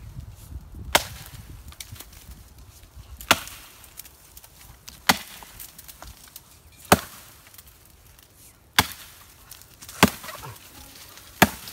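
A Fiskars X15 chopping axe biting into the limb of a fallen tree: seven sharp chops, one every one and a half to two seconds.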